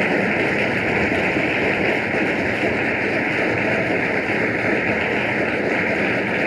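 Steady, even hiss of an old live tape recording, with no music or voice in it.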